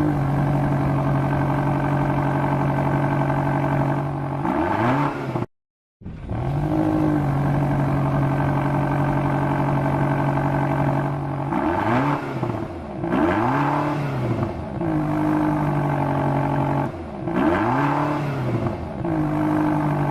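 A car engine revving, its pitch repeatedly dropping and climbing again, cut off briefly to silence about five and a half seconds in.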